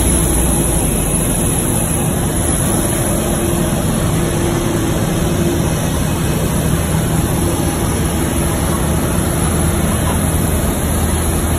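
Steady, loud drone of aircraft and ground machinery on an airport apron beside a parked Boeing 737-800, with a constant low hum and no breaks.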